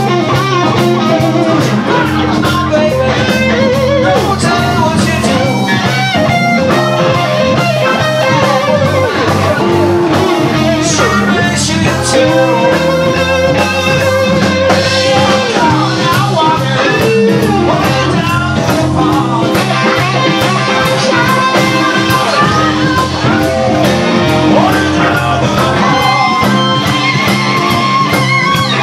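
Live electric blues band playing an instrumental stretch: electric guitars with bent notes over electric bass and drums.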